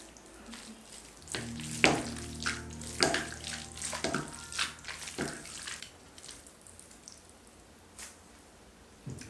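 Kitchen water sounds: splashing and running water with several sharp knocks in the first five seconds and one more near the end, with soft music faintly underneath.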